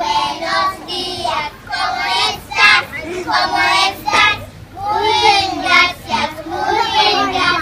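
A small group of young children singing together, unaccompanied.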